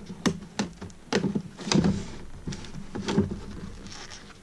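Rigid clear-plastic clamshell package being pried and cut open with a small knife: a run of irregular sharp cracks and knocks of stiff plastic, the loudest a little before halfway.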